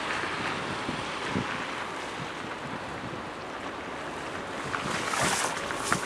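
Car tyres hissing on a wet, slushy road, fading slowly as the car drives away. About five seconds in comes a louder rush with a few sharp crackling clicks.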